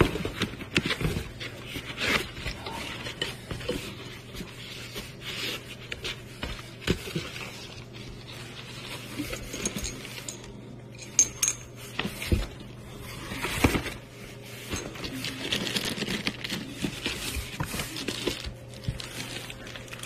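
Ceiling fan parts being handled in a cardboard box with foam packing: irregular knocks, clicks and rustling as pieces are shifted and lifted out, over a steady low hum.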